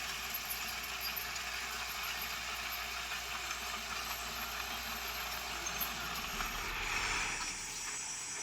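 Heavy equipment engine running steadily, with a brief rise in noise about seven seconds in.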